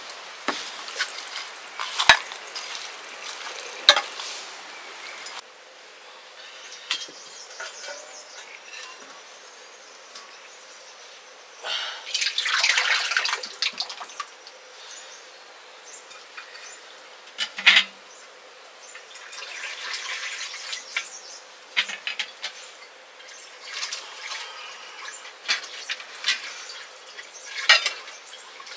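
Water being splashed and dripped in short spells, with scattered sharp clicks and knocks.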